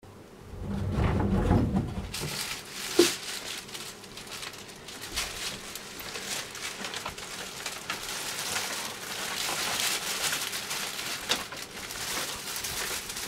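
A sliding door slides open in the first two seconds, a sharp knock comes about three seconds in, and then plastic shopping bags crinkle and rustle steadily as they are carried and held up.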